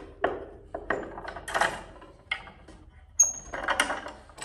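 Steel pipe clamps being loosened and handled: a series of sharp metallic clicks and clanks, about one a second, one of them with a short ringing ping about three seconds in.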